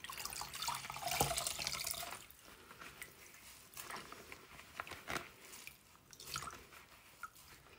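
Wet, soapy wool locks squeezed out by hand over a bowl of wash water. Water streams out for about two seconds, then falls back into the bowl in a few separate drips.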